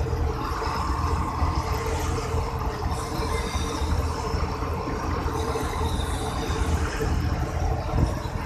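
In-cab sound of a UD Trucks Nissan Diesel Quester 6x4 concrete mixer truck on the move, loaded with concrete. Its diesel engine runs steadily with a low drone and a constant hum, mixed with road noise.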